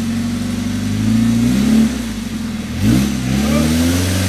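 Jeep engine idling, then revved twice: the pitch rises about a second in, drops back, then climbs quickly again about three seconds in and holds.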